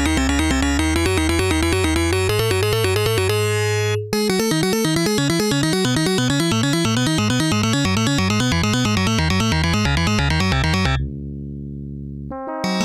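Synthesizer music with fast repeating notes. A line climbs in pitch over the first four seconds, then there is a brief break and the busy pattern resumes. About eleven seconds in it drops to softer held low tones.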